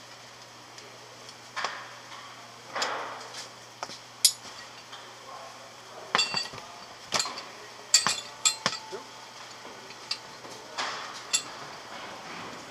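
Metal rigging hardware and hand tools, such as shackles, a hook and a metal fid, clinking and knocking on a wooden workbench: about a dozen sharp clinks, some with a short ring, between brief rustles of rope being handled.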